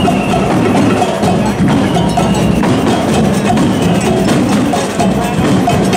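Percussion band drumming a steady rhythm, with the noise of a large crowd around it.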